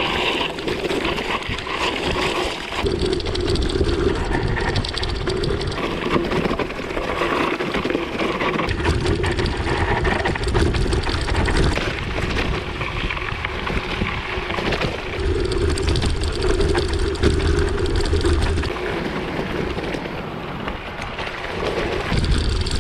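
Gravel bike descending a loose gravel road: tyres crunching and rattling over the stones, with wind gusting on the camera microphone at times.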